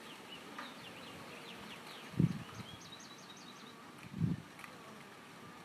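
Honeybees buzzing briefly as they fly close past, twice, about two and four seconds in, over small birds chirping, with a quick high trill in the middle.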